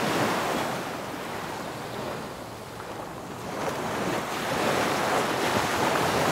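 Ocean surf washing in: an even rush of waves that eases off a little in the middle and builds again.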